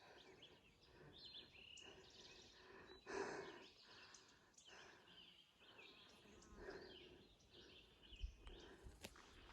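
Faint woodland ambience with birds chirping in the distance, and a brief louder rustle about three seconds in.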